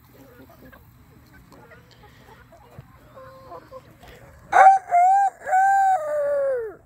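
A rooster crowing about two-thirds of the way in: a loud crow of several notes, the last one long and falling in pitch at its end. Before it, chickens cluck softly.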